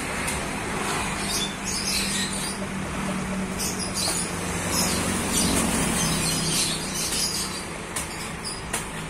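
Steady motor hum, with birds chirping in short high calls over it.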